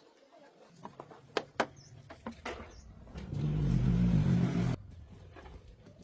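A motor running with a low hum and scattered knocks and clicks; about three seconds in it gets much louder, with a hiss, for a second and a half, then drops back abruptly.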